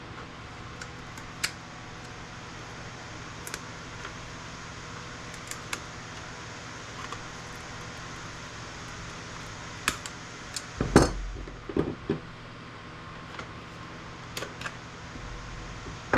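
Scattered light metallic clicks and clinks of steel pieces and components being pulled off circuit boards and handled, with a cluster of louder knocks about eleven seconds in and another at the very end, over a steady fan hum.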